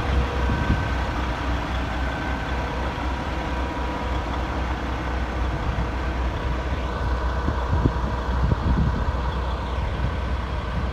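The Peterbilt 389's PACCAR MX-13 diesel engine idling steadily.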